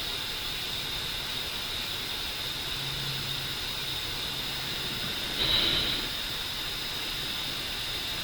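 Steady background hiss with a faint high-pitched whine, and one brief louder noise about five and a half seconds in.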